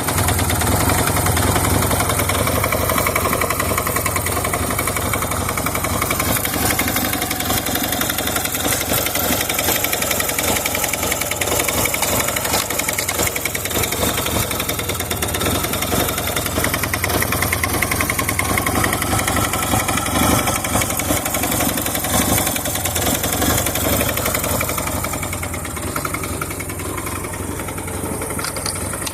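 Honda Benly motorcycle engine idling steadily, with a strange noise that the owner wonders may come from a faulty muffler.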